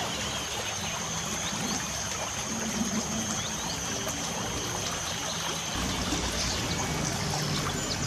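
Light rain falling steadily, with a few short bird chirps now and then and a thin, steady high-pitched tone. About three-quarters of the way through, a low rumble comes in underneath.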